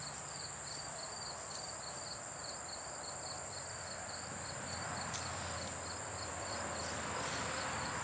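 Insects chirping in the grass: a steady high trill with a pulsed chirp repeating several times a second, over steady outdoor background noise.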